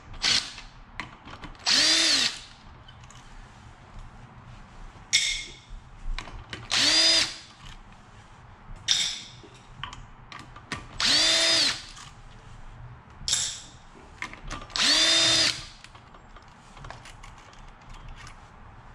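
Power drill run in short bursts, its motor winding up and down each time, backing out bolts to remove the clutch of a Yamaha YZ250F four-stroke engine. Four longer runs of about a second each, with shorter blips between them.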